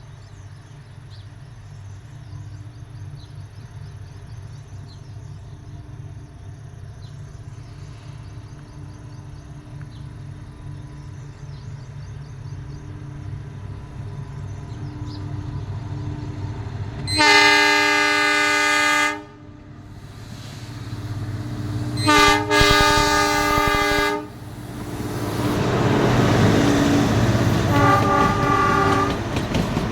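Narrow-gauge ZDM-class diesel locomotive approaching with its engine growing steadily louder, then sounding two loud horn blasts of about two seconds each, a few seconds apart, a little past halfway. The engine and the coaches' wheels then pass close, with a brief fainter horn sound near the end.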